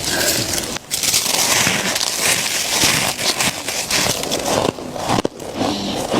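Thick freezer frost being bitten and chewed close to the microphone: a dense run of crackly crunches with a brief pause just before one second in.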